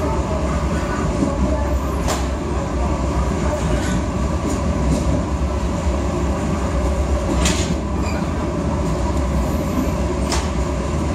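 Passenger coach of the Argo Parahyangan running at speed, heard from inside: a steady low rumble of wheels on rail, with about three short sharp noises spread through it.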